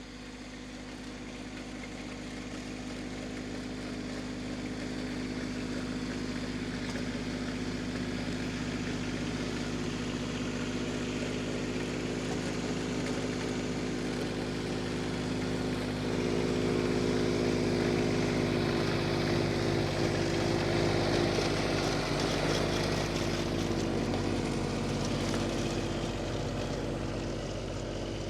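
An engine running steadily, a droning hum with a clear pitch that grows louder over the first half, shifts slightly higher in pitch about two-thirds of the way in, then eases a little near the end, as a vehicle approaches and passes close by.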